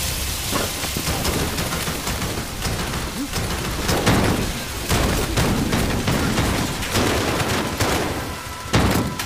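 Film soundtrack of guns firing in rapid volleys, with shots hitting metal pipes in an engine room. Louder blasts come about four seconds in and again near the end.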